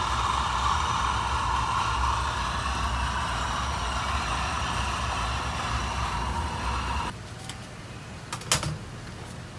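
Steady mechanical hum with a hiss on top, which cuts off abruptly about seven seconds in. Quieter background follows, with a couple of light knocks.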